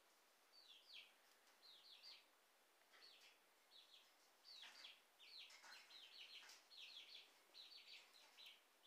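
Faint small-bird chirping: quick, high, downward chirps in clusters, repeating many times throughout.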